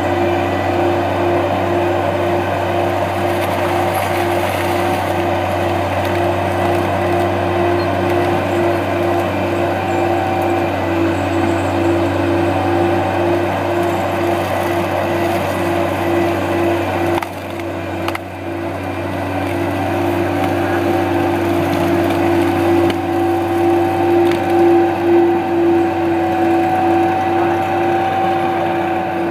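AHWI Raptor 800 tracked forestry mulcher running hard, its engine and spinning rotor drum giving a steady loud hum, with wood splintering as the rotor chews into a tree trunk. The sound dips briefly about two-thirds of the way through.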